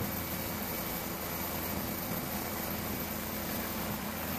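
Steady drone of the aircraft filming from above, engine and rotor noise under a constant hiss.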